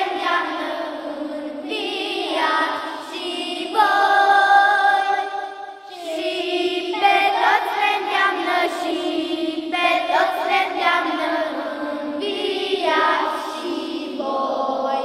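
A group of children singing a Romanian hymn together, in long sung phrases with a brief breath about six seconds in.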